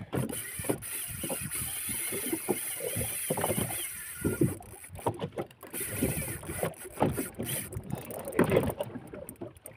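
Fishing reel under the pull of a big yellowfin tuna: a wavering high whine from the drag giving line for the first few seconds. Irregular knocks and rubbing from handling the rod in the small boat run throughout.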